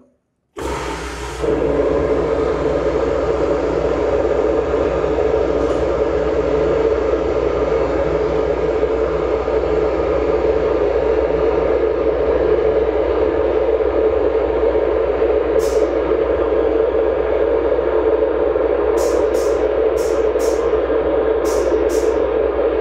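Vixen Aquablast 1215 vapor blast cabinet running: its nozzle sprays a mix of water, high-pressure air and glass bead onto a transmission axle stub. The spray is a loud, steady hiss with a strong rushing body, and it starts abruptly about half a second in.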